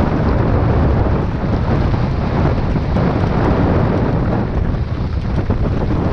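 Heavy wind buffeting on a helmet-mounted camera's microphone during a mountain-bike descent, a steady low rumble, with the rattle and crunch of tyres over the gravel dirt trail.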